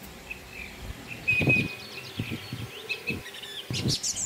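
Birds chirping in short, repeated high calls, with a few brief low thuds in the middle, the loudest about a second and a half in.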